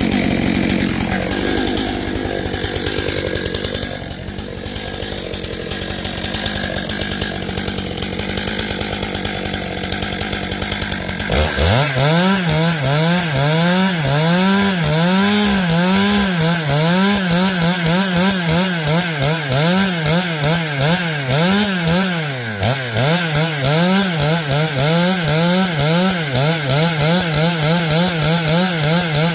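Stihl MS 661 C two-stroke chainsaw running at high throttle while cutting through oak. About eleven seconds in the sound changes abruptly, and from then on the engine pitch rises and falls about once a second, dipping and recovering under the load of the cut.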